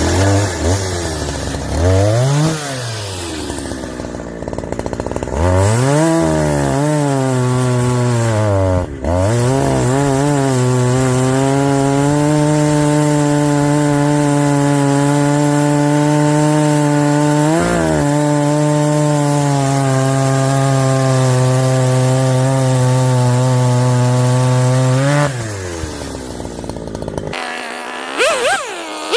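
Gasoline chainsaw bucking a log into rounds: the engine revs up and down several times, then holds at full throttle through a long cut, dipping once briefly, before dropping back to a lower speed near the end.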